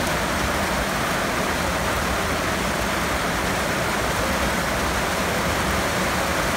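Steady, even rushing noise with no distinct events, the same hiss that lies under the speech on either side.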